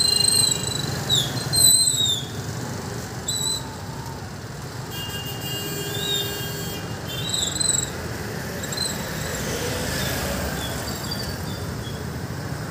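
Street traffic, motorcycles and scooters running, under a string of short, high chirps and whistles that glide up and down, with one steady high tone held for about two seconds midway.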